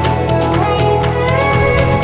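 Background music: a melodic track with gliding notes over a steady bass and a regular beat.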